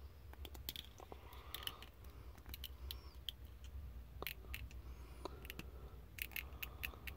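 Small plastic Transformers BotBots figure being worked in the fingers: faint scattered clicks and scrapes of its tiny hinged parts, with a quick cluster of clicks about six seconds in, as the stiff feet are pried out.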